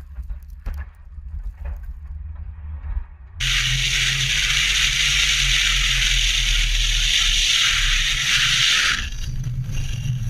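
Car onboard audio: a low engine rumble with scattered clicks. About three seconds in, a loud steady hiss of tyres on a gravel road and wind suddenly starts over the low rumble. Near the end the hiss thins and turns patchy as the car throws up dust off the road.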